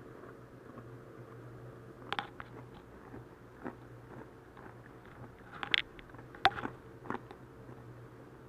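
Close-miked eating: chewing and biting, with a handful of sharp wet clicks and smacks, the loudest a little past the middle, over a steady low hum.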